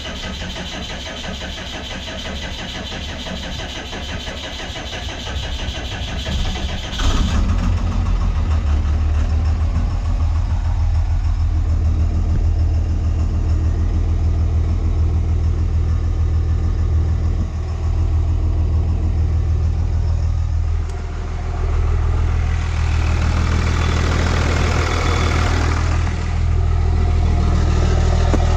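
24-valve Cummins 5.9 diesel turning over on the starter for about seven seconds, then catching and running steadily at idle. This is the restart after a new AirDog lift pump install, with air being worked out of the fuel system.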